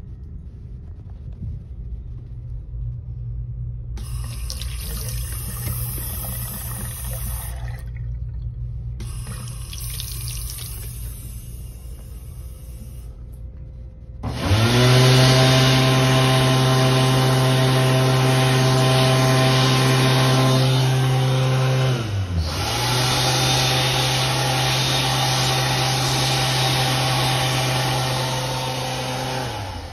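ASi Profile sensor-activated hand dryer starting up about halfway through: its motor whine climbs in pitch to a steady hum over rushing air. It cuts out for a moment about eight seconds later, starts again, and winds down near the end. Before it starts there is only a low hum and a fainter rushing noise that stops and starts.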